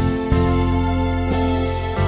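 Background music: a slow instrumental with held notes over a deep bass, a new note struck about once a second.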